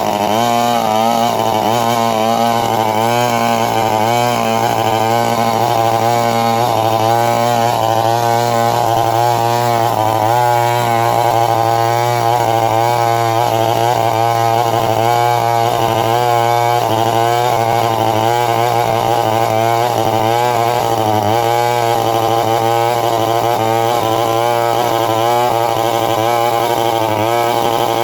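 Chainsaw running continuously at high speed, its engine pitch wavering up and down as it cuts into a coconut palm trunk.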